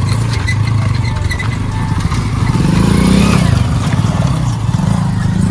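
Motorcycles riding up over bare rock, engines revving under load; the engine pitch climbs about halfway through, then holds.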